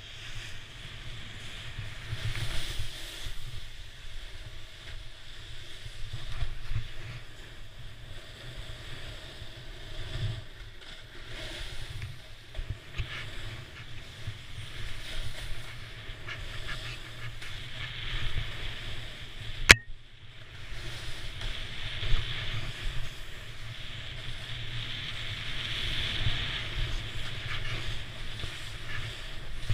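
Snow scraping and hissing under a rider sliding downhill, swelling and easing with the turns, with wind buffeting the microphone. One sharp click about twenty seconds in.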